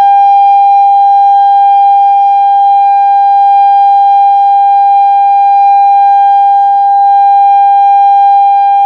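Genasys LRAD DS-60XL speaker arrays sounding a steady alert tone, held at one fixed pitch with no rise or fall. It is the test tone of an outdoor emergency warning system.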